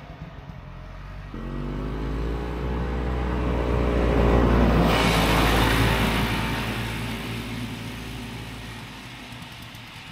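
Vintage Ski-Doo snowmobile's two-stroke engine revving up, its pitch rising as it approaches, passing close about five seconds in, then fading as it rides away.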